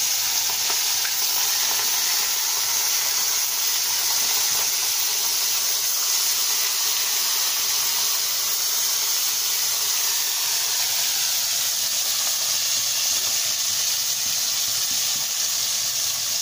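Salt-and-turmeric-coated bhola fish pieces frying in hot mustard oil in a kadai: a steady, loud sizzle.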